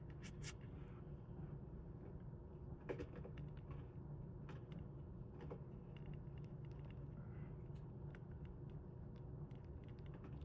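Faint scratching and small clicks of a Gundam paint marker being drawn on a part of the CPAP motor assembly, barely leaving a mark, over a low steady hum.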